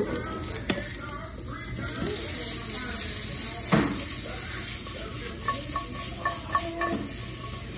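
Food sizzling in a frying pan with a steady hiss, while a utensil stirs and scrapes in the pan; one sharp clack a little under four seconds in.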